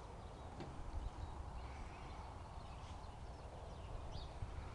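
Short, scattered bird chirps over a steady low rumble of wind on the microphone.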